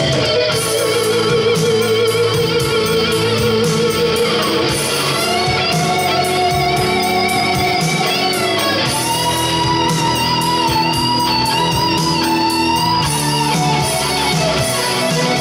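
Live electric guitar solo on a Stratocaster-style guitar: long held lead notes bent up and shaken with vibrato, over a band backing of bass and drums with a steady cymbal beat. The lead line climbs to a higher held note about halfway through.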